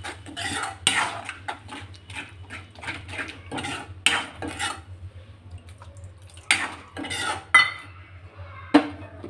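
A metal spoon scraping and clinking against a kadai while stirring thick onion-tomato masala frying in a little water. The strokes come irregularly, ease off briefly in the middle, and the sharpest clinks come near the end.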